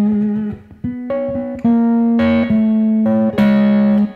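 Stratocaster-style electric guitar in open E tuning playing a blues slide turnaround lick: a phrase of about eight single notes, the longer ones ringing for half a second or more.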